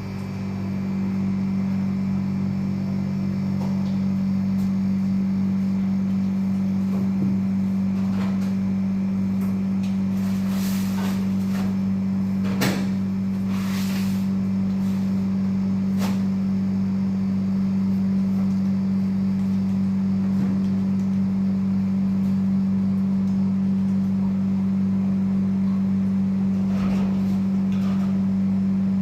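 A machine running with a steady, low, even hum, with a few short clicks and knocks about halfway through.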